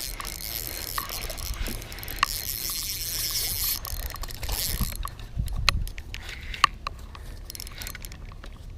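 A hooked largemouth bass being fought in: water splashing and sloshing, then a scatter of sharp clicks and ticks in the second half.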